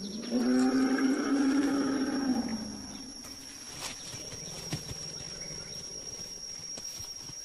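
A forest elephant trumpets once, a single pitched call lasting about two and a half seconds. A steady high insect drone runs behind it.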